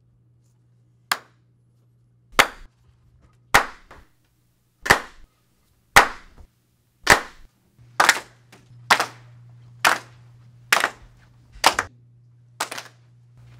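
Several people clapping slowly in unison, single sharp hand claps about one every 1.2 s at first, quickening to about one a second: about a dozen in all.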